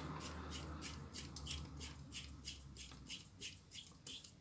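Faint metallic ticking, about three ticks a second, as a T-handle hex key turns a short M10 set screw into a steel lathe chuck jaw.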